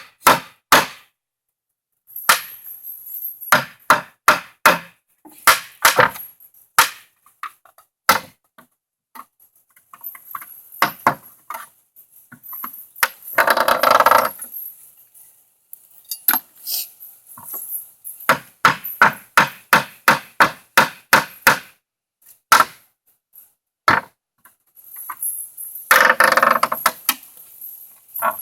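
Rubber mallet striking a crowbar wedged into a wooden pallet, a run of quick knocks after another, to pry the boards loose. Twice a longer grating stretch breaks the knocking, near the middle and near the end.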